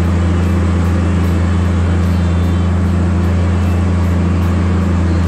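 Tigercat 718E wheeled feller buncher's diesel engine running steadily with a low, even drone, heard from inside the cab, over the hiss of its front tires churning through deep floodwater.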